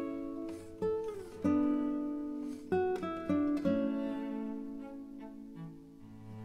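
Background music: plucked guitar notes ringing and dying away one after another, with low bass notes near the end.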